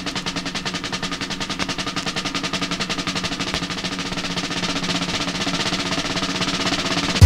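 Intro music: a fast, even snare-drum roll that slowly grows louder and ends on a loud hit as the music starts.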